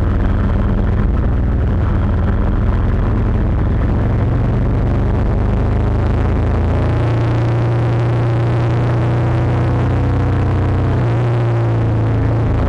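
Motorcycle engine running under way with wind noise on the camera's microphone; about seven seconds in the engine note settles into a steady, even drone.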